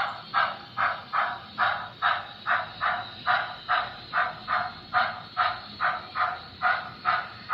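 Sound-equipped model locomotive chuffing evenly, about two and a half chuffs a second, as the train creeps along at low speed.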